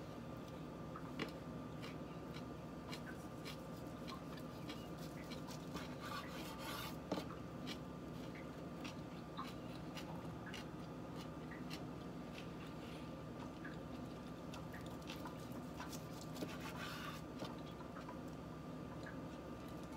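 Chef's knife slicing a nori-wrapped sushi roll on a bamboo cutting board: scattered sharp clicks and light scrapes of the blade meeting the board, a few louder, over a steady low hum.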